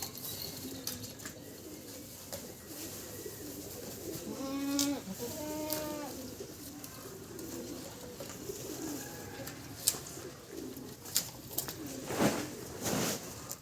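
Animal calls: many short, low calls, with two longer wavering calls about four and five seconds in, and a few sharp knocks near the end.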